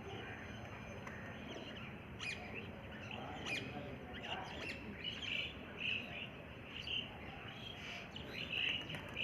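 Birds chirping: many short, high chirps at irregular intervals over a steady background hiss, the loudest near the end.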